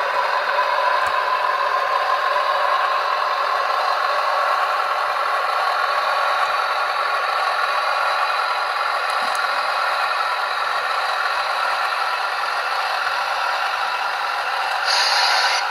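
Sound-decoder recording of a Class 101 diesel multiple unit's engines running steadily, played through an OO-gauge model train's small speaker with no bass. A brief hiss comes near the end.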